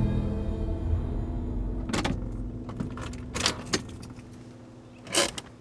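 Sustained low music fading away, then a few separate sharp clicks and knocks, about four in all, as of car keys and a car door being handled.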